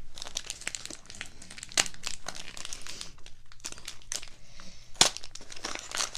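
Small gift-wrapped package being unwrapped by hand: the paper wrapping crinkles and tears in a busy run of crackles, with two sharper snaps about two and five seconds in.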